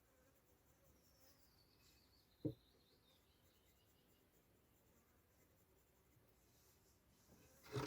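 Near silence with a faint falling whistle, a single soft knock about two and a half seconds in, and a short scraping burst at the very end.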